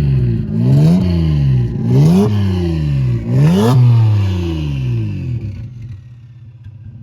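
Turbocharged Mazda MX-6 engine running on E85, its revs swinging up and down several times. About five seconds in it settles into a quieter, steady low running.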